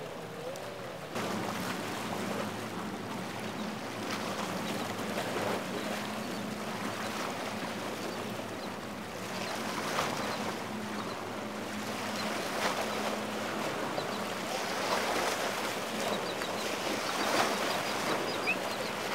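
A boat engine running steadily at a low pitch under the rush of choppy water, with waves slapping and splashing loudly a few times.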